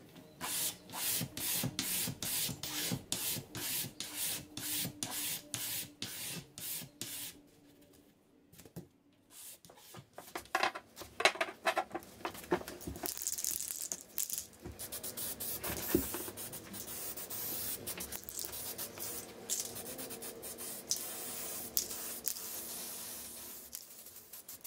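Sandpaper rubbed by hand along an oak board in quick back-and-forth strokes, about two to three a second. After a brief pause there are more scrubbing strokes, then a steadier hiss.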